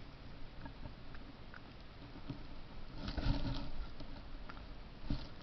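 A cat rubbing against a trail camera, its fur brushing the casing right at the microphone: irregular scratchy rustles and soft knocks, loudest about three seconds in and again near the end.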